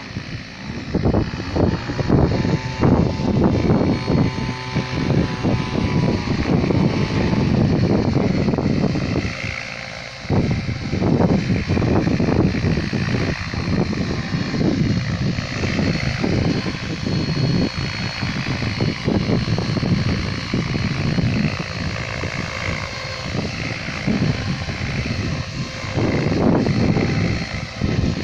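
Mikado Logo electric RC helicopter in flight: the steady high whine of its motor and rotor over loud, irregular low buffeting, with a short lull about ten seconds in.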